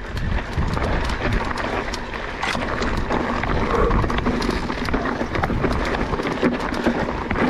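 Electric mountain bike riding over a rough, rocky trail: tyres rolling over stones, with frequent knocks and rattles from the bike, and wind rumbling on the microphone.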